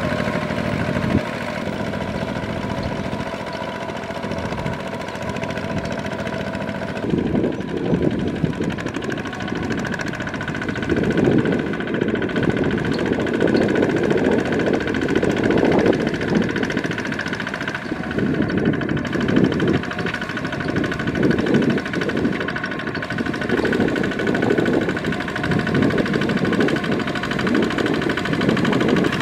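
Single-cylinder diesel engine of a two-wheel walking tractor running steadily under load, its cage wheels churning through a flooded rice paddy. From about seven seconds in it is louder and rougher, with uneven surges.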